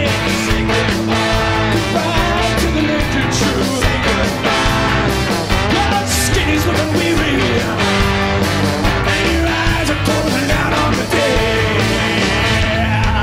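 Loud live rock band playing: drums with cymbals, electric guitars and bass, with a trombone in the mix.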